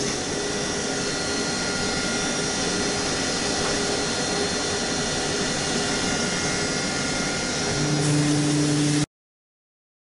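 CNC machine running inside its enclosure, a steady mechanical whir with faint high whines as the fixture is moved. About eight seconds in a low pitched hum joins, and the sound then cuts off abruptly.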